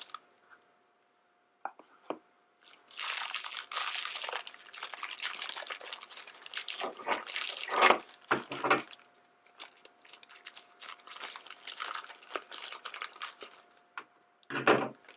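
Small plastic toy bag crinkling and rustling as it is handled and opened by hand, starting a few seconds in.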